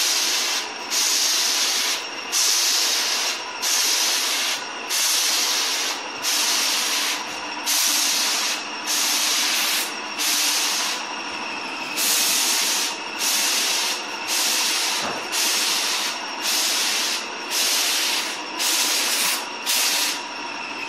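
Airless spray gun hissing as it sprays putty. The hiss dips briefly in a steady rhythm, about once every 0.8 seconds, over a faint steady hum.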